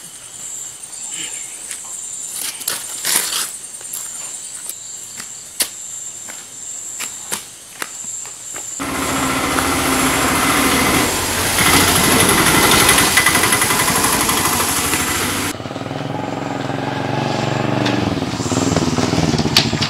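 Crickets chirp steadily with a few scattered clicks. About nine seconds in, a small vehicle engine cuts in suddenly and runs loud. Near the end its pitch glides up and down as the vehicle comes up.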